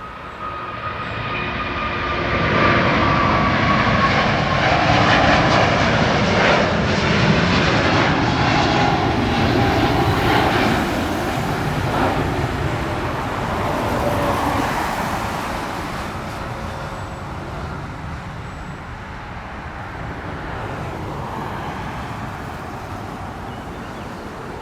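Jet airliner taking off: a broad engine roar swells about two seconds in, holds loud for around twelve seconds with an engine whine sliding down in pitch as it passes, then slowly fades.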